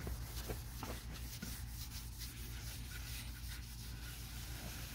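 Folded paper towel wiped along a rubber-covered car window belt trim, cleaning it with wax and grease remover: faint rubbing and scuffing, with a low steady hum beneath.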